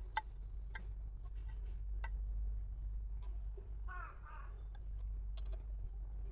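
Scattered sharp clicks over a low steady rumble, with a short two-part bird call about four seconds in.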